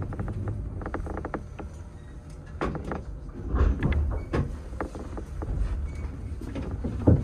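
Toyohashi Railway Atsumi Line electric train moving slowly into a station siding: a low rumble with many irregular clicks and knocks, and one heavier knock near the end.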